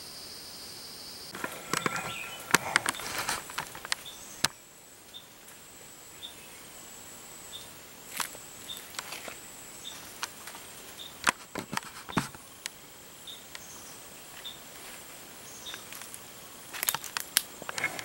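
Dry leaf litter and twigs crackling and snapping underfoot, with brush rustling, as someone walks slowly through forest undergrowth; the crackles come in clusters with pauses between. A steady high insect buzz carries on underneath, with faint regular ticks about twice a second.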